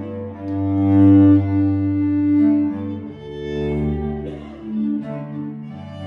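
Fiddle and cello duo playing a Swedish fiddle tune. The cello holds long low notes beneath the fiddle's melody, with each note sustained for a second or two.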